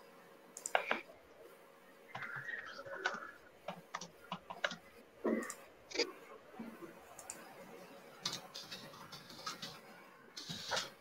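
Faint, irregular clicking and tapping of typing on a computer keyboard.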